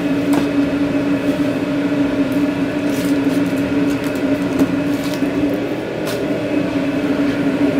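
Steady mechanical hum of food-truck kitchen machinery, a constant drone, with a few light clicks and taps scattered through it.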